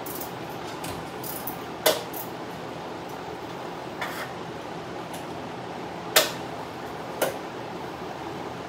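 A large drum fan running steadily, with four sharp metallic clinks from hand work in the engine bay, about two, four, six and seven seconds in.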